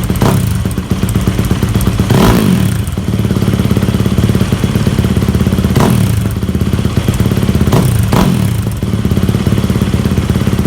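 Yamaha WR250F's 250 cc four-stroke single running through a newly fitted FMF 4.1 RCT silencer, idling with short throttle blips: one right at the start, one about two seconds in, one near six seconds and two close together near eight seconds.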